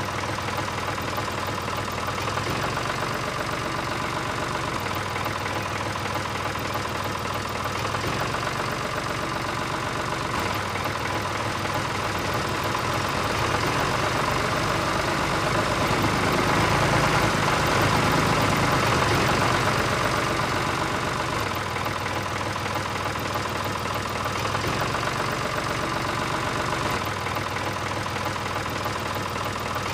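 Tractor diesel engine idling steadily. It swells louder about halfway through, then settles back.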